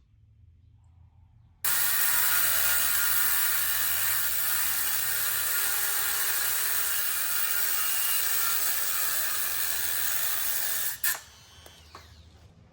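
Power tool with a cutting wheel grinding through seized, rusted steel bolts on a camper latch clip: a loud, steady, high grinding hiss that starts abruptly about a second and a half in and cuts off abruptly near the end, followed by a click.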